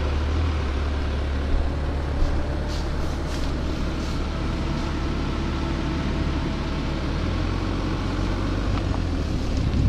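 BMW 750d's quad-turbo straight-six diesel idling steadily, a low even hum heard from outside the car.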